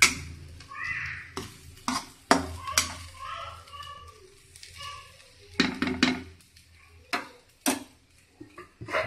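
A cooking spoon stirring vegetable curry in a metal kadhai, scraping and knocking against the pan in irregular clatters, with a cluster of knocks around six seconds in.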